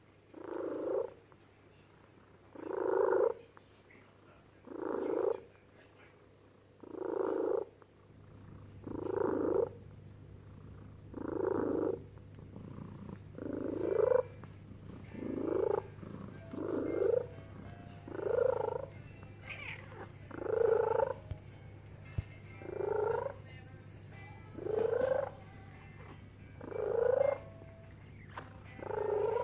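Female brown tabby cat making her pigeon-like cooing growl over and over, a short rising call about every two seconds.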